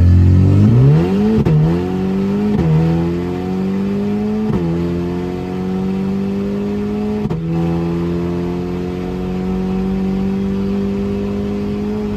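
Audi S3's turbocharged 2.0-litre four-cylinder, its muffler removed, at full throttle, heard from inside the cabin. The engine note climbs and drops suddenly at each of four quick upshifts, the gaps between them growing longer. It then pulls slowly and steadily higher in a tall gear.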